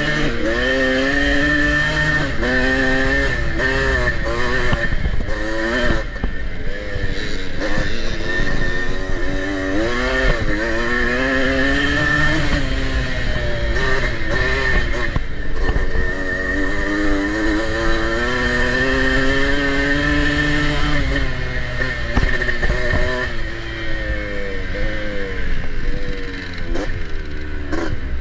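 1984 Yamaha IT200's single-cylinder two-stroke engine being ridden hard, its pitch rising and falling over and over as the rider opens and closes the throttle through the gears.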